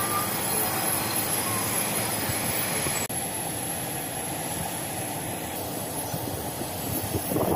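Steady mechanical drone with a thin high whine over it. The sound breaks off and the drone goes on slightly duller about three seconds in, and it swells louder near the end.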